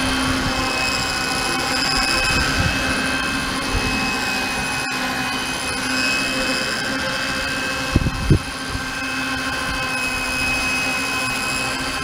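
Radio-controlled model helicopter with a diamond rotor head running, its rotor spinning as it hovers just off the ground: a steady whine with a high tone over a low hum. Two short low thumps come about eight seconds in.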